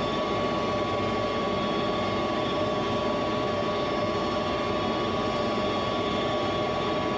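Goodman propane furnace's draft inducer fan running steadily as the furnace starts up before ignition: an even rush of air with a thin, steady motor whine.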